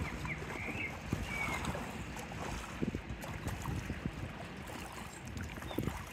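Small waves lapping against shoreline rocks, with wind gusting on the microphone. A few short high chirps sound in the first two seconds.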